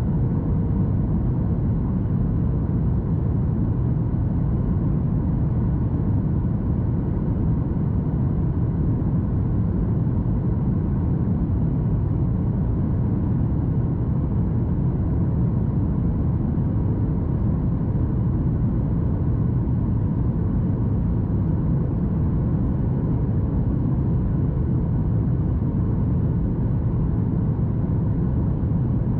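Steady cabin noise of a Boeing 737 MAX 8 heard from inside the cabin, a low rumble of engines and airflow with faint steady tones, unchanging in level.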